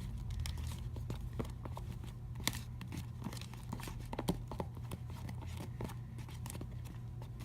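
A utensil stirring glitter into a sticky glue and shaving-gel slime mixture in a bowl, making irregular clicks several times a second, over a steady low hum.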